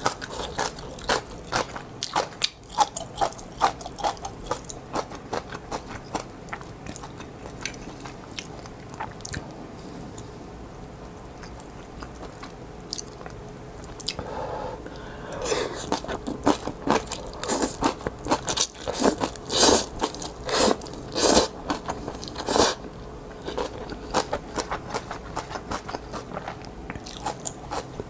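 Close-miked eating of spicy instant ramen: wet chewing, biting and crunching throughout, with louder noodle slurps over several seconds around the middle.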